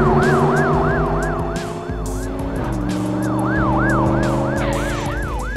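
Ambulance siren wailing in fast rising-and-falling sweeps, about three a second, over a steady low drone that drops in pitch about two and a half seconds in.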